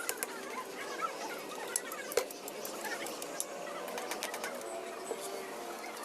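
Birds chirping, over scattered light clicks and taps, with one sharper knock about two seconds in.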